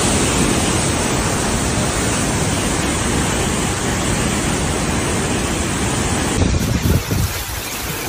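Steady roar of a flood-swollen river's whitewater torrent churning past. Near the end it gives way to a quieter, gustier rushing noise.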